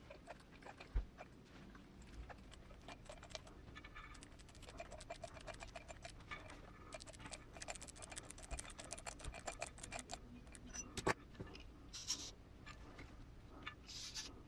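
Faint, dense clicking and scratching of small hardware being handled as a small steering-limiter screw is driven by hand into a 1/10 RC crawler's plastic steering C-hub, with a few sharper clicks near the end.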